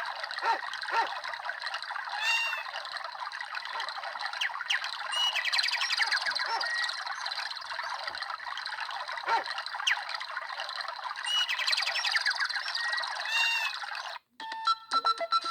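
Samsung SGH-E600 mobile phone playing a birdsong nature-sound ringtone: many chirping and squawking bird calls over a hiss, the same stretch of calls returning about nine seconds later. It cuts off about a second before the end, and short electronic notes of the next ringtone begin.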